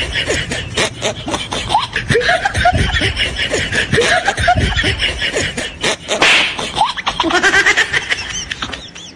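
People laughing in short, repeated bursts, over frequent sharp clicks, with a brief hissing burst about six seconds in.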